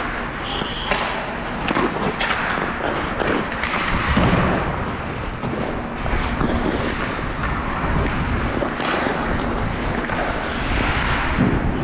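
Play in a team game: a run of sharp knocks, clacks and scrapes over a steady rumble.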